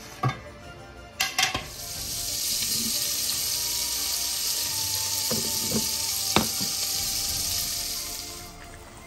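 A glass pot lid clinks against a pot, then chicken soup at a rolling boil hisses and bubbles steadily for several seconds, with a few light knocks partway through, before fading out near the end.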